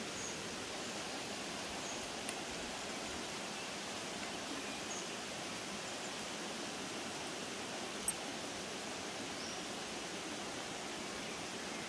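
Steady rushing of a forest stream, with a single sharp click about eight seconds in.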